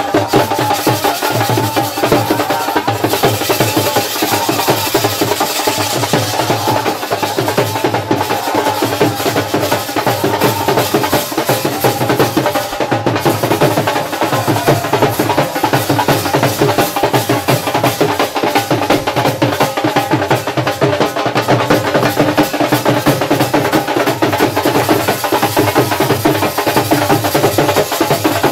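Dhol drums beating a fast, steady dhamal rhythm, with a steady held tone underneath.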